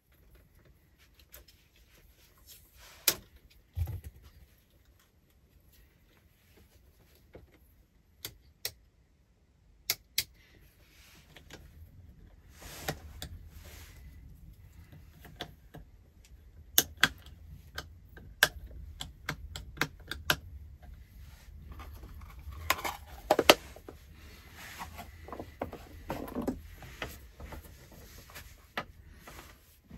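Scattered sharp clicks, taps and handling noises of plastic electrical fittings being pressed, snapped and fastened into place as a wall light switch, socket strip and junction box are mounted. The clicks come more often in the last few seconds.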